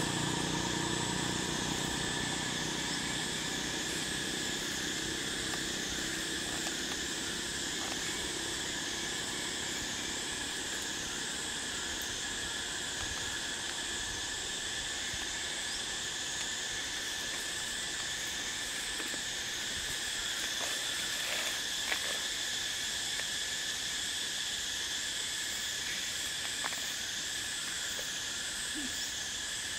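Steady chorus of insects: several continuous high-pitched trills layered together, the highest wavering up and down at an even pace, with a few faint clicks partway through.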